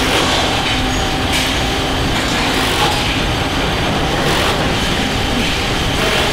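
Steady din of a car final-assembly line: the overhead conveyor and factory machinery running, with a few sharp knocks of tools and parts.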